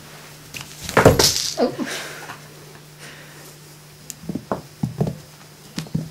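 A loud thump with a brief rustle about a second in; then, from about four seconds in, a run of short soft thuds as a kitten leaps, lands and scampers on carpet chasing a feather wand toy.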